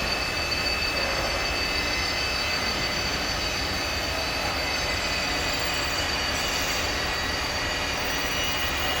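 CNC wood lathe running steadily, an even mechanical hum with a high whine of several steady tones.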